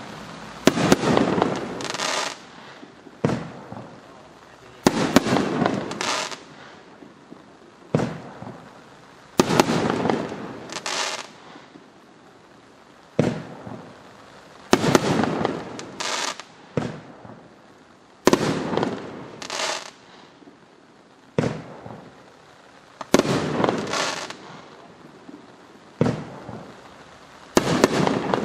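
Winda Trinity nine-shot fireworks cake firing its shells one at a time, about every five seconds. Each shot is a launch thump, a loud burst high up about a second and a half later, and a second break of crackling about a second after that.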